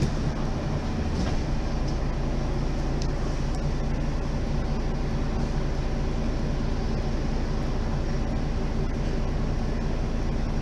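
Diesel engine of a 2008 Mercedes-Benz Citaro G Facelift articulated bus idling steadily while the bus stands still.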